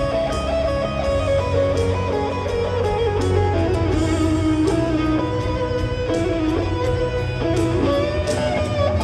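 Live rock band playing, led by an electric guitar solo that holds and bends long notes over bass and drums, picked up from the crowd of a large venue.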